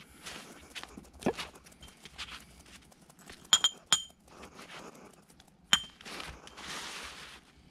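Ceramic food bowl clinking sharply three times, each a short ringing tick: two close together just past the middle, a third about two seconds later. Soft rustling and shuffling between, with a dull knock about a second in.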